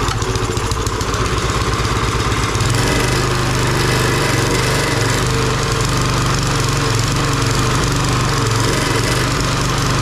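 Small gasoline engine of a garden tiller running steadily just after starting, a little louder from about two seconds in.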